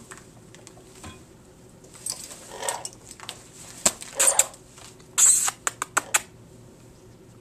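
Blue-fronted Amazon parrot bathing in its water bowl, flapping its wings and splashing in a few short, noisy flurries. The loudest comes about five seconds in, followed by a few sharp taps.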